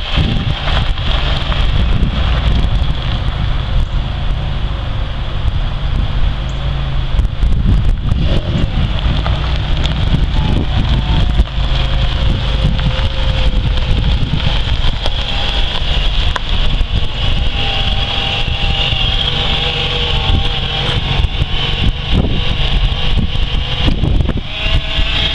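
A 1995 Chevrolet Monte Carlo driving slowly around a gravel lot, its engine running steadily, with heavy wind noise on the microphone.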